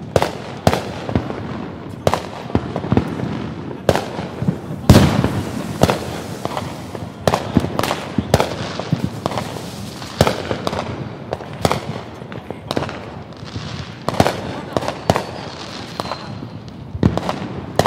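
Fireworks going off: a continual run of irregular bangs and pops, the loudest bang about five seconds in.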